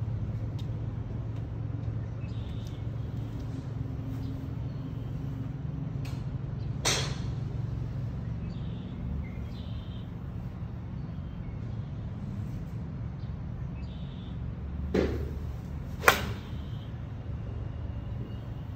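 An iron striking a golf ball off a driving-range hitting mat near the end: a brief swish of the downswing, then one sharp, loud click at impact. A steady low hum runs underneath, and a single sharp strike is heard about seven seconds in.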